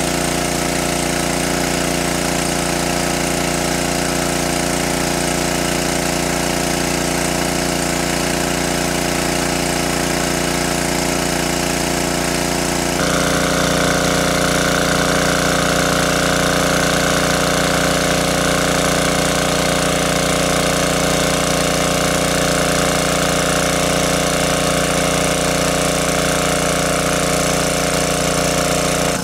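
A small petrol-engine water pump running steadily at a constant speed, with its jet of water gushing and splashing out of the outlet hose. About halfway through, the sound turns a little louder and brighter.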